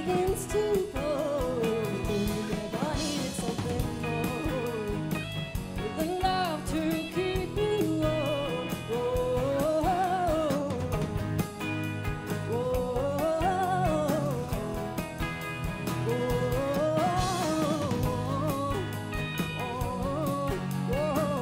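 Live alternative folk rock band playing a song: a woman sings the lead melody over strummed acoustic guitar, electric guitars and a drum kit.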